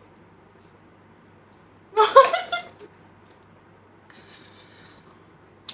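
A brief vocal sound, a short exclamation, about two seconds in. Otherwise the room is quiet, with a faint soft hiss for about a second near the end and a single click at the close.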